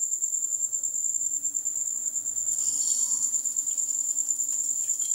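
A stuffed bitter gourd is lowered into hot oil in a steel pan and begins to sizzle softly about halfway through. A steady high-pitched trill sounds throughout, the loudest thing heard.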